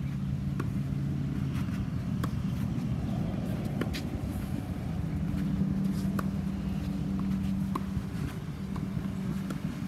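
A steady low motor hum, like an engine running, that shifts to a higher pitch about halfway through. Over it come sharp pops of tennis balls struck with rackets and bouncing on the hard court every second or two, the loudest about four seconds in.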